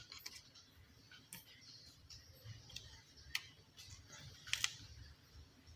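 Faint, scattered clicks and light knocks, a few in all, from handling tools or parts, over a low hum.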